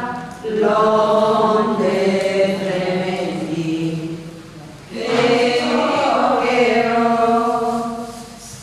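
Voices singing a slow, chant-like hymn in unison, in two long phrases of drawn-out notes. The first phrase begins about half a second in and the second about five seconds in.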